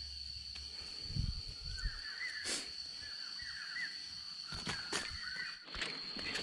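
A steady high-pitched insect drone, with a bird chirping in quick little trills about two to four seconds in and again near five seconds. There are several sharp snaps or knocks, and some low thumps near the start.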